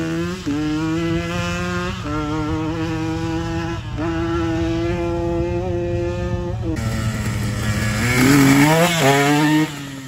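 Dirt bike engine pulling away under throttle, its note holding steady and briefly dipping at each of several gear changes. Near the end it is revved up and down in quick blips before cutting off abruptly.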